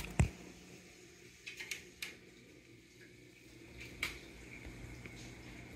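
A steady low hum with a faint high tone, broken by a few light knocks and handling noises, the sharpest just after the start and another about four seconds in.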